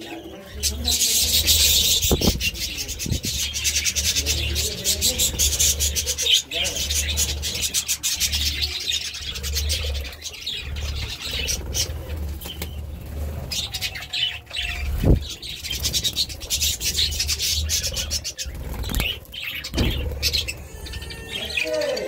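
Budgerigars chattering and chirping, with wing flaps as birds fly in and rustling clicks as they work at a handful of parsley.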